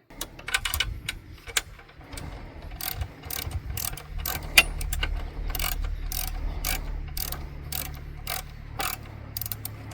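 Ratchet wrench clicking in short runs as the height-adjustment bolts of an Alaskan chainsaw mill are turned to set the cutting depth, over a steady low hum.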